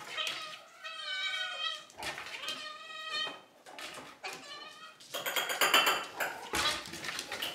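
Domestic cats meowing loudly and insistently for their food, several long drawn-out meows one after another. From about two-thirds of the way in, a rapid clatter of clicks and rattles takes over.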